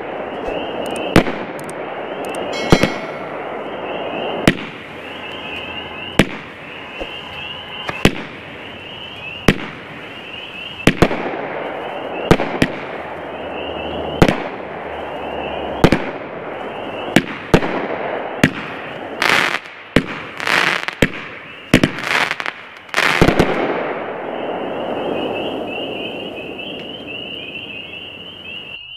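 A 19-shot, 200-gram consumer firework cake firing in sequence: a string of sharp launch thumps and breaks about every second to second and a half, each trailing off in a short crackle. About two thirds of the way in comes a tight cluster of longer, louder bursts, then the sound dies away to a fading crackle.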